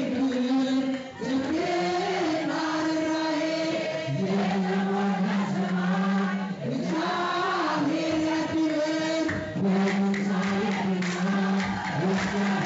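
Ethiopian Orthodox liturgical chant: a group of voices singing a hymn together in unison, holding long notes that step up and down in pitch.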